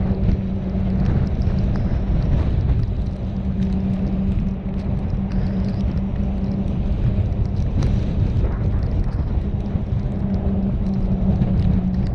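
A car driving: steady low road and engine rumble with a constant hum under it.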